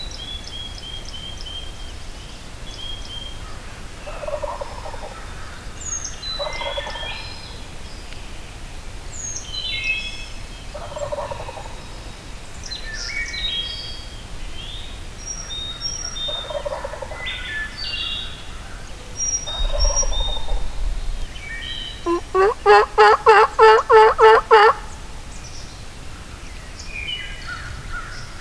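Wild turkey calls in woodland with songbirds singing. Several short turkey calls come every few seconds. About 22 s in, a loud rapid run of about ten turkey yelps lasts a couple of seconds.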